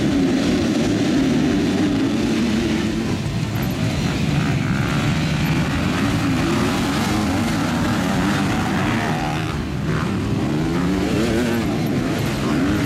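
A pack of motocross bikes accelerating hard off the start and into the first corner, many engines revving together with their pitches rising and falling.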